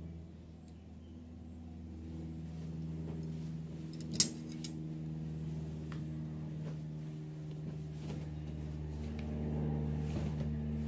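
Steady low hum, with one sharp metallic clink about four seconds in as a metal spoon is set down, and a few faint ticks after it.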